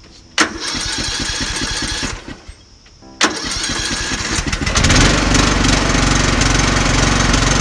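Lawn mower engine cranked twice by its electric starter, running on power from a portable jump starter clamped to its dead battery. The first crank of about two seconds does not catch. The second catches about five seconds in, and the engine runs steadily and louder.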